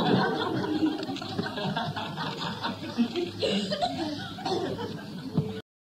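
Audience laughter after a punchline, slowly dying down, then cut off abruptly about five and a half seconds in as the recording ends.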